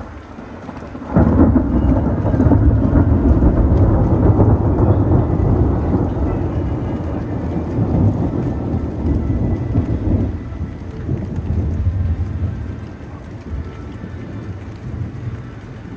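Thunder: a sudden loud clap about a second in, then a deep rolling rumble that goes on for about ten seconds before slowly fading.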